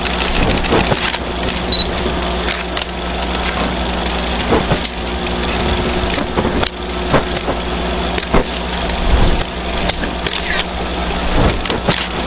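Vintage film projector sound effect: a steady mechanical hum with irregular crackles and clicks throughout.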